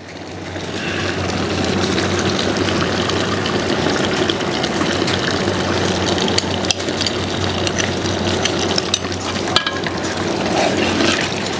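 Ground roasted-coconut masala paste going into a pot of hot boti (beef tripe) curry on the stove and being stirred in: a steady sizzling that builds over the first second, with occasional clicks.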